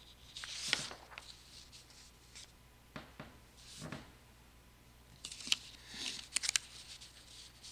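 Soft paper rustling and a handful of light clicks and taps as papers are handled at a wooden pulpit, with a sharper cluster of clicks about two thirds of the way through.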